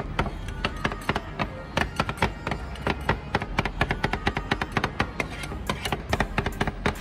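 Two metal spatulas chopping and tapping rapidly on the frozen steel plate of a rolled ice cream (tawa ice cream) counter, breaking cookie pieces into the cream: a quick, uneven run of sharp metallic clicks.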